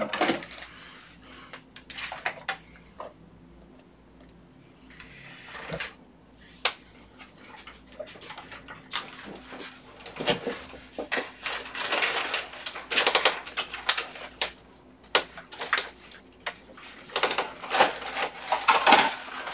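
Irregular clicks, taps and clatters of small hard objects being picked up and set down, growing denser in the second half, with a short rustle about five seconds in.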